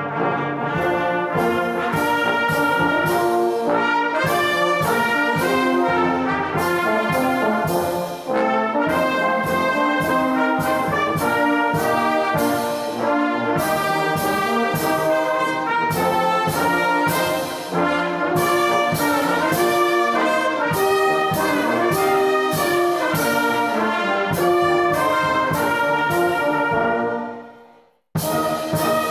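Brass band of trumpets, trombones, horns, euphoniums and tubas playing a hymn in full chords. It comes in together at the start, plays one long passage, stops briefly near the end and comes in again.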